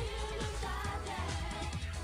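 Background music: a singing voice over a steady beat of deep kick drums.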